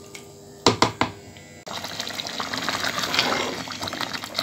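Two sharp knocks near the start, then, from about a second and a half in, a dense bubbling and crackling as thick chana dal with fenugreek leaves simmers in a pot and is stirred with a spoon.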